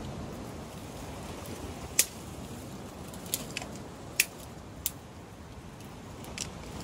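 Steady low rush of wind and surf, with several sharp, high clicks or snaps scattered through it, the loudest about two seconds in.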